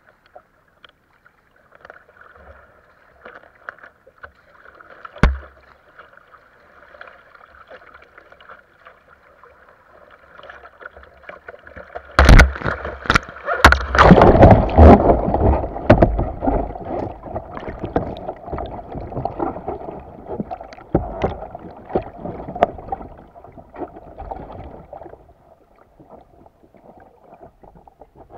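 Kayak running through river riffles with water rushing past the hull, and a single sharp knock about five seconds in. About twelve seconds in, loud splashing and churning as the kayak rolls over. The splashing then gives way to muffled gurgling heard from underwater, which slowly dies down.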